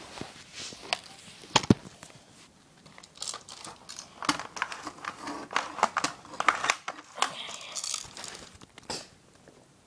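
Handling noise from checking a non-electric airsoft rifle for BBs: irregular plastic clicks and rattles, with a sharp loud click a little under two seconds in. The phone's microphone is rubbing and crinkling against clothing.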